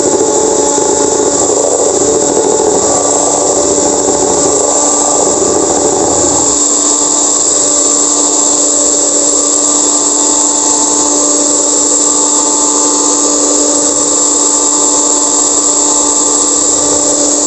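Electric hand mixer running steadily at one speed, its beaters whipping egg whites into meringue in a plastic bowl. A lower churning underneath eases off about six seconds in.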